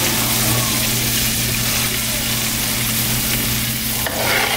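Hot oil sizzling steadily as scallops fry, over a constant low hum.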